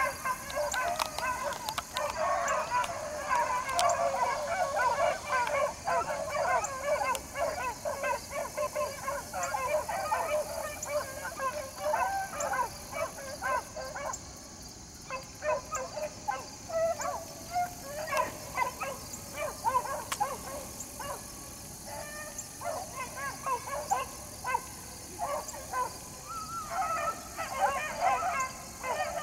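A pack of rabbit hounds baying in chorus at a distance, giving tongue while running a rabbit's track through brush. The cry thins briefly about halfway and again two-thirds through, then swells near the end.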